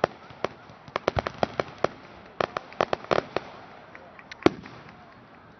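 Aerial fireworks shells bursting: a rapid, irregular string of sharp bangs, thickest in the middle, with one loudest bang about four and a half seconds in, then thinning out.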